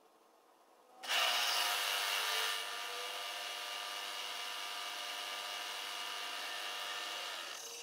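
Machine-tool spindle running steadily: a motor's whine of several steady tones over a hiss. It starts abruptly about a second in, louder for its first second and a half, and stops just before the end.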